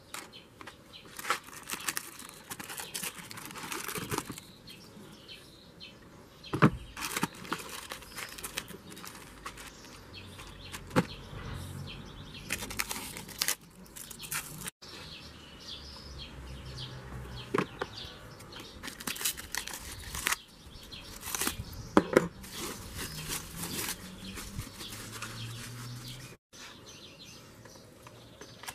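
Plastic packaging being handled: bags crinkling and tearing, with irregular sharp clicks and knocks of hard plastic parts and hose connectors as a garden hose set is unpacked and fitted together.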